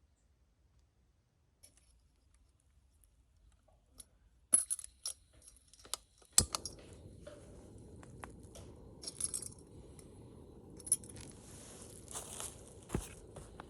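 Sharp metallic clinks and knocks of small gear being handled, the loudest about four and a half and six and a half seconds in. Right after the second knock a steady low rushing sound starts, with scattered rustles over it.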